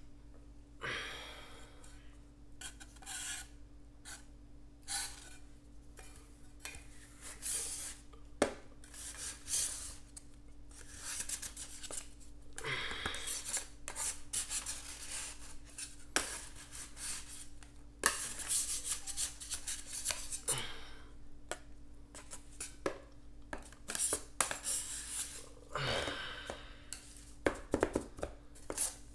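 Metal ice cream spatulas scraping and chopping across a metal cold plate in irregular strokes with sharp taps. The frozen layer crumbles into flakes and chips instead of rolling.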